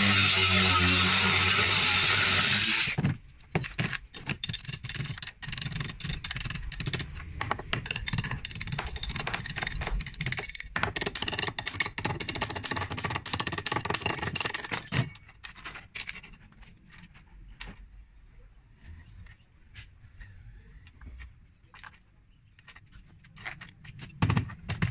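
An angle grinder with a cutting disc slices through a coil of steel wire wound on a rod, then stops about three seconds in. Cut steel rings clatter and jangle against the rod and steel bar until about halfway through. After that come quieter metal clinks as the links are handled with pliers, and a couple of sharp knocks near the end.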